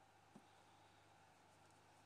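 Near silence: room tone with a faint steady hum and one soft tick.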